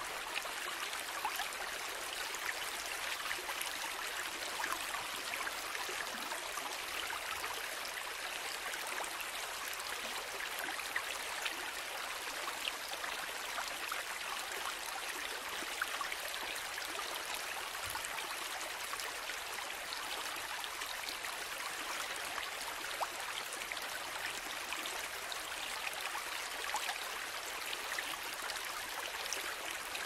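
A small waterfall running steadily with light rain falling, the two blending into one even rush of water with scattered faint drop ticks.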